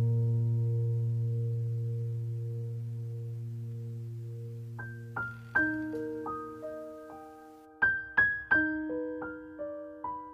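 Background piano music. A held chord slowly fades out, then single notes are picked out one after another in a slow, gentle melody from about five seconds in.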